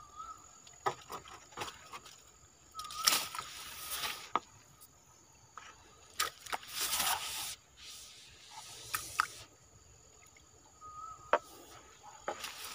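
Water splashing and sloshing in a few short bursts around a bamboo lift net, with scattered light clicks and a faint steady high insect whine.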